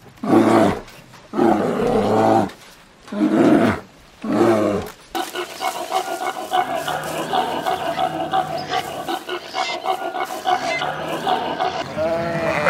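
A black bear growling, four separate low calls of about a second each, with pauses between. About five seconds in they give way to a steady, continuous background of mixed animal sounds.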